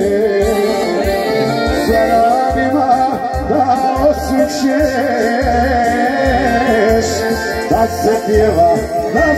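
Live band music played on electronic keyboards and amplified through PA speakers, with a melody line over a steady bass beat.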